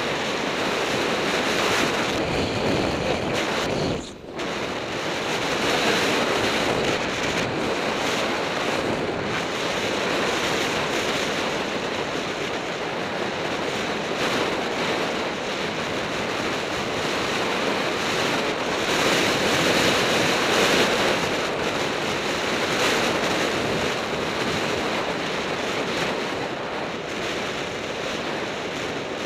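Wind buffeting the microphone of a bike-mounted camera on a fast road-bicycle descent: a steady rush of noise that dips briefly about four seconds in.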